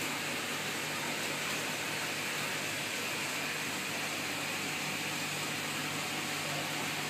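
Steady hiss with a faint low hum from running aquarium equipment: the filtration pump and circulating water.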